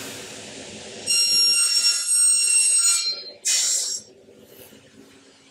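Pneumatic clamps on an aluminum upcut saw engaging: a hiss of compressed air, then a loud hiss with a high whistling tone for about two seconds, and a short hiss near four seconds. A low steady hum runs underneath.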